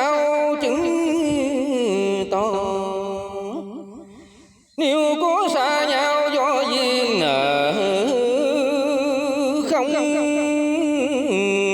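Vietnamese tân cổ music: a slow, ornamented melody with heavy vibrato and sliding pitch bends. It fades out about four seconds in and comes back abruptly a second later.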